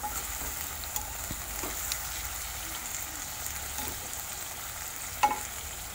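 Masala gravy of a small fish curry sizzling steadily in a pan, with a spatula gently stirring and turning the fish, now and then lightly scraping the pan.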